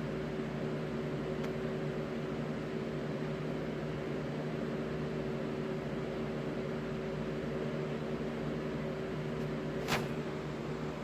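Steady mechanical hum with several constant low tones over a noise bed, and a single sharp click about ten seconds in.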